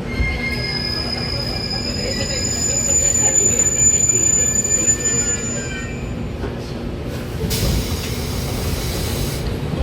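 JR Kyushu 813 series electric train braking into a station, its wheels squealing with several high, steady tones over the running rumble that die away about six seconds in. A burst of hiss follows for about two seconds near the end.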